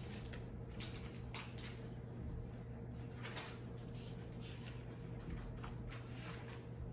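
Classroom room tone: a steady low hum with scattered faint clicks and rustles.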